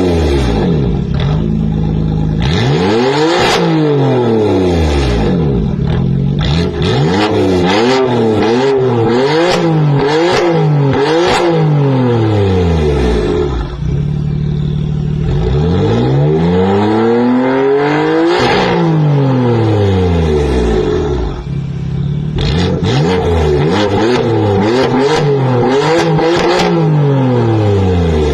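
BMW M4's twin-turbo straight-six through an Armytrix valved exhaust, revved over and over: a few long sweeps up and down and many quick blips, with sharp crackles as the revs drop. It settles to a steady idle twice, about 14 seconds in and again about 21 seconds in.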